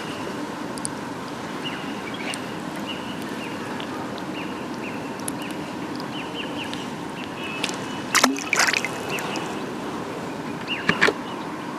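Water trickling and sloshing, with a few short sharp sounds about eight and eleven seconds in.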